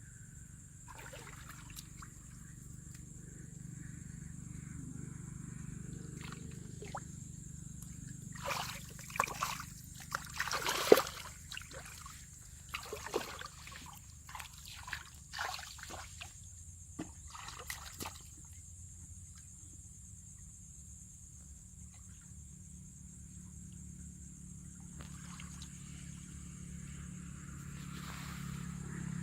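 Water splashing and trickling in a cluster of irregular splashes through the middle, over a steady low hum.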